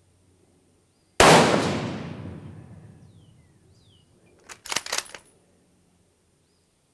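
A single rifle shot from a Ruger Precision Rifle in 6.5 Creedmoor about a second in, its report echoing and dying away over the next two to three seconds. About three and a half seconds after the shot comes a quick run of sharp metallic clicks as the bolt is worked.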